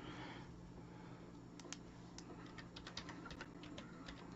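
Faint typing on a computer keyboard: light, irregularly spaced key clicks over a faint steady low hum.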